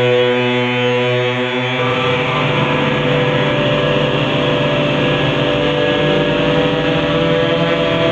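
Experimental electronic sound effect: a loud, steady synthesized drone of stacked tones that turns rougher and noisier about two seconds in, with held tones still sounding beneath.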